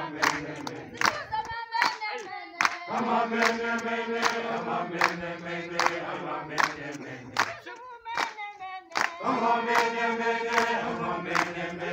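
A crowd of protesters singing a protest song together, with sharp, steady claps about twice a second. The chorus drops out twice, briefly leaving one voice singing alone.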